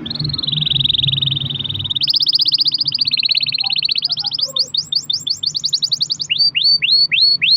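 Domestic canary singing a long, rapid trilled roll, switching to a new trill about every two seconds, then breaking into a run of separate rising sweeps near the end.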